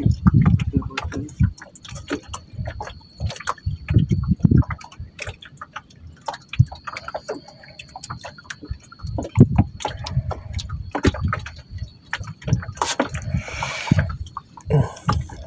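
Small waves slapping and lapping against a wooden outrigger canoe, with irregular knocks and clicks and a faint steady high tone underneath.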